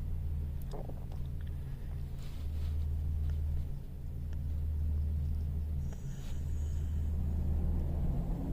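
The 2017 Ram 1500's 3.6-litre Pentastar V6 idling steadily, a low, even rumble.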